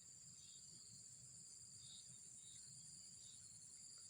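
Faint, continuous high-pitched chirring of insects, steady and unbroken.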